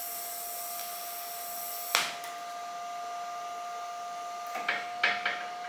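DC TIG welder arc burning for a tack weld: a steady high hiss with a thin whine, which cuts off with a click about two seconds in. The welder's steady hum goes on after it, with a few light knocks near the end.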